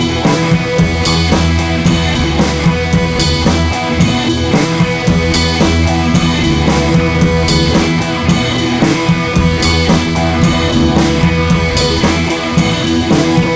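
Background music with a drum kit and guitar keeping a steady beat.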